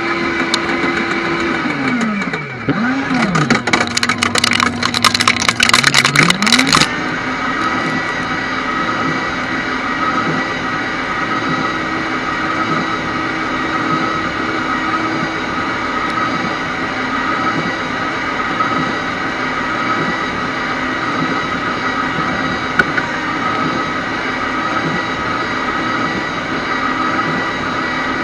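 Electric shredder's motor and cutters cracking through a CD: a dense crackle of snapping plastic while the motor's pitch sags under the load and recovers, stopping about seven seconds in. After that the motor runs on steadily with the cutters empty.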